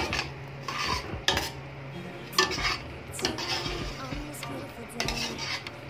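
A plastic spatula stirring a thick creamy sauce of mushrooms and bacon in a stainless steel pot. It scrapes and knocks against the pot's sides and bottom at irregular moments, about once a second.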